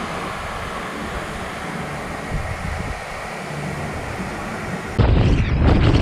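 A steady hiss, then about five seconds in an abrupt jump to loud, low wind buffeting on the microphone of a camera moving along a road.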